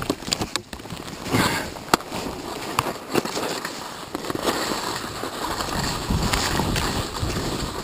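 Skis hissing and scraping over firm snow on a downhill run, with many irregular crackles and knocks; the hiss grows a little louder and steadier about five seconds in.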